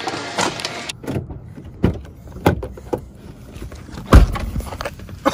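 A car door shutting with a heavy thump about four seconds in, the loudest sound, among scattered knocks and clicks of someone getting into the car.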